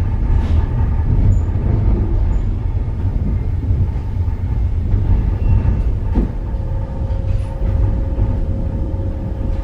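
A passenger train rolling slowly into a station, heard from inside the coach: a steady low rumble of wheels on the track. A steady whine joins about two-thirds of the way through.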